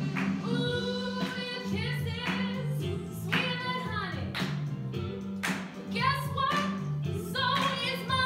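A woman singing a song over an instrumental accompaniment, her voice wavering with vibrato, with a steady beat about once a second.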